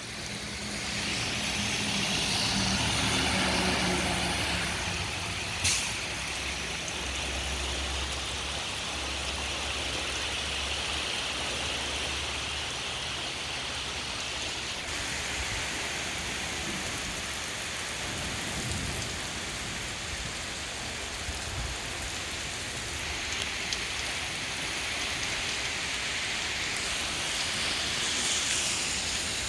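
Heavy rain falling steadily on pavement, lawns and trees in a storm, an even hiss. A low hum runs under it for about the first twelve seconds, and there is one sharp click about six seconds in.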